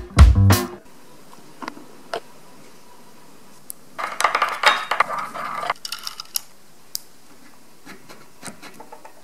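A paintbrush stirred and clinking against the sides of a porcelain teacup for about two seconds, starting around four seconds in, with a few light clicks before it and soft ticks of a paint-marker tip tapping on a surface near the end.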